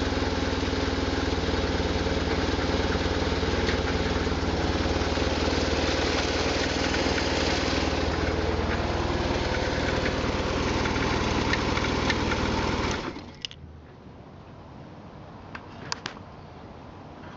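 The air/oil-cooled boxer twin engine of a 1999 BMW R1100RT-P motorcycle idling steadily, with a rattle that the owner hears coming from the engine. The engine stops suddenly about three-quarters of the way through, followed by a few sharp clicks.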